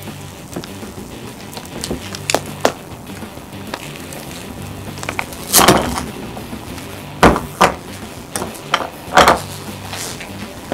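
Several sharp knocks and clacks of a knife and cut pieces of a plastic toy poop against a marble board. The one about halfway is longer and noisier, like a scrape. Quiet background music plays underneath.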